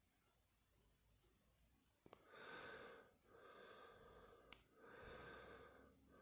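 Slow, audible breathing close to the microphone, starting about two seconds in, in long breaths about a second each, while a padlock is picked. A single sharp metallic click from the lock-picking tools comes about halfway through and is the loudest sound.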